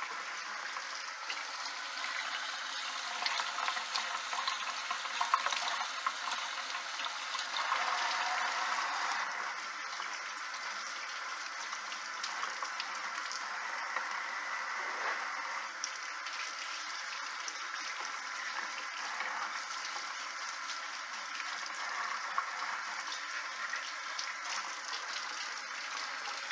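Kitchen faucet running into a stainless steel sink as vegetables are rinsed and scrubbed by hand under the stream, with water splashing off the hands and produce. A steady rush of water, briefly louder about eight seconds in.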